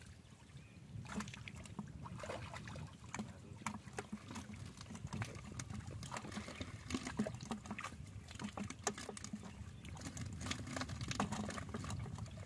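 Hands splashing and squelching in shallow muddy water while groping in the mud for fish: many small, irregular splashes and wet slaps over a steady low rumble.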